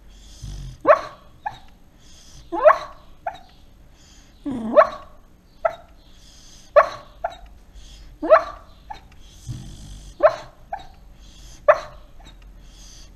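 A sleeping dog barking in a dream: short barks come in pairs, a louder one then a softer one about half a second later, repeating every one and a half to two seconds.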